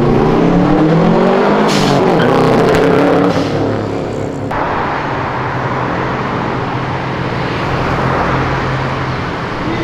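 Modified Subaru Impreza's flat-four engine driving past, its note rising and falling as it goes by; the owner's tuning gives it a strong sound. After about four and a half seconds it gives way abruptly to a steadier hum of street traffic and engines.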